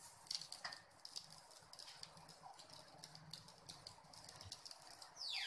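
Faint, scattered light ticks and crackling from a pan of fried cumin rice as chopped coriander leaves are sprinkled over it. Near the end a louder falling tone sweeps down and a hiss begins.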